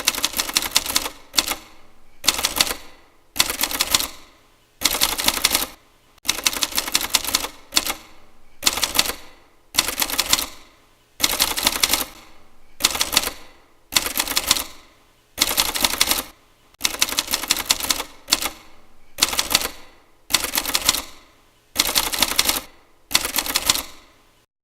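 Manual typewriter keys struck in quick flurries, about seventeen short bursts of rapid clacking, each separated by a brief pause.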